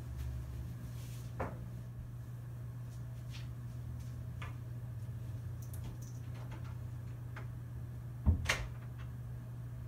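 Hotel room tone: a steady low hum with scattered faint ticks, and a sharp double knock about eight seconds in.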